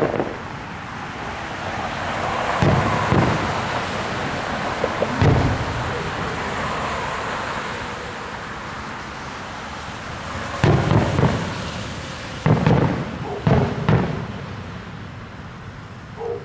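Aerial fireworks shells bursting in the distance: a few single booms in the first third, then quick clusters of booms in the last third, with a steady background noise between them.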